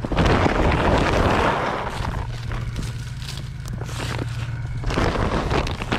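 A woven plastic bag of deer corn being ripped open along its pull strip, then crinkling and rustling as it is handled; the noise is densest for the first couple of seconds and picks up again near the end.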